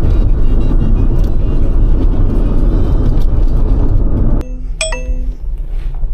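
Loud, steady engine and road noise inside a cargo van's cab, cutting off abruptly about four seconds in. Right after, a dashboard chime dings twice.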